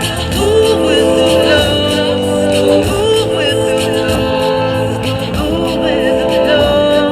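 Live band music: a singer holding long, gliding notes over a steady bass line.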